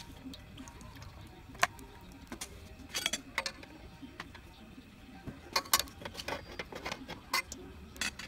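Scattered sharp pops and ticks from cooking oil heating in a steel wok, in irregular clusters, with a louder pop near the end.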